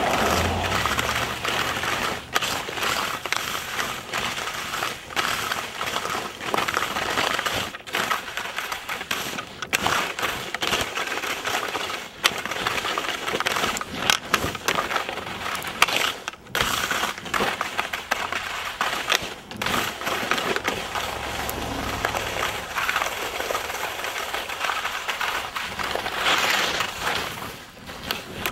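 Skis scraping and chattering over thin, crusty snow and slush on pavement, with many sharp clicks and knocks. A low rumble rises briefly near the start and again about two-thirds of the way through.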